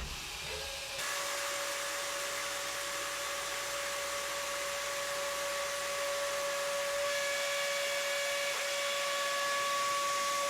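A machine running steadily: an even hiss with a steady whine, with higher tones joining about seven seconds in.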